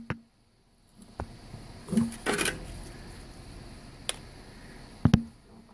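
A few scattered light clicks and knocks of metal tools and parts being handled, after a moment of silence at the start.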